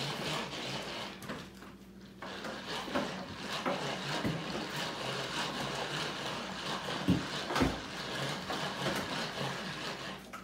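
Tupperware Power Chef pull-cord processor with its whisk attachment, pulled over and over to whip cream: the whirring of the spinning whisk and retracting cord, with irregular plastic clicks and a short pause about two seconds in.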